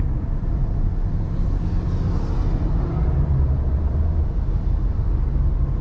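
Car on a highway heard from inside the cabin: steady low engine and road rumble.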